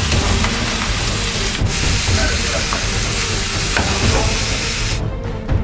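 Chunks of meat frying and sizzling in a stainless steel saucepan, just splashed with whiskey, and stirred with a wooden spoon. The sizzle cuts off abruptly about five seconds in.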